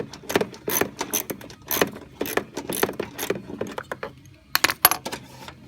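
Metal hand tools and parts clicking and clinking in irregular sharp clicks, with two louder clicks near the end.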